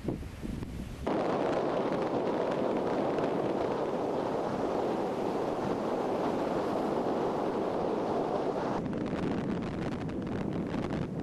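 Wind rumbling on the microphone on a beach. About a second in, a louder, steady rush of surf breaking on the shore takes over, and near the end it falls back to gusty wind.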